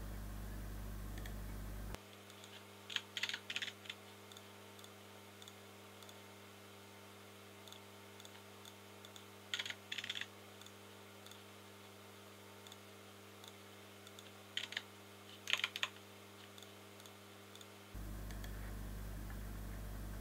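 Computer keyboard keys tapped in three short bursts of several keystrokes each, about three, ten and fifteen seconds in, as load values are typed in. A faint steady low hum stops about two seconds in and comes back near the end.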